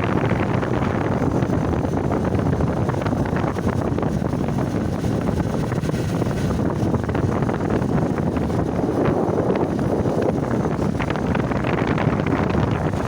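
Steady wind noise rumbling on the microphone, with a vehicle running underneath.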